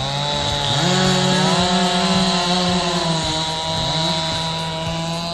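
Motor-driven saw on a firewood machine running steadily while cutting wood, its pitch gliding up and down a few times as the load changes.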